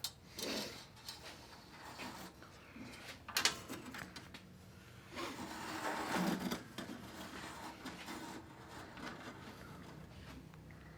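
Hands working on furnace parts: irregular scraping and rustling with a few sharp knocks, the longest scraping stretch about halfway through.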